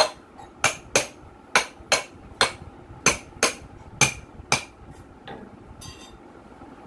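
Hammer striking the rear end of an electric motor: ten sharp metallic knocks, about two a second, that stop about four and a half seconds in. A fainter knock and a short scrape follow.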